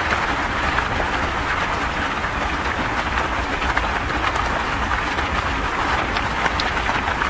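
Fast floodwater rushing through a street, a loud, steady rush of water.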